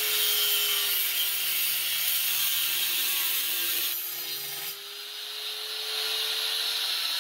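Angle grinder running with a steady motor whine, its disc grinding against a steel frame tube with a loud rasping hiss. The grinding eases briefly a little past halfway, then picks up again.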